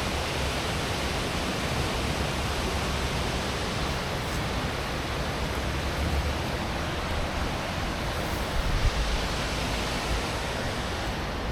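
Steady rushing roar of Düden Waterfall's falling water, unbroken and even, with a deep rumble underneath.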